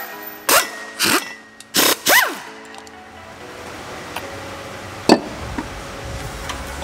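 An impact wrench fires three short bursts, each rising and falling in pitch, as it spins out the driveshaft-to-differential-flange bolts through the rubber guibo. A single sharp click follows a few seconds later, over background music.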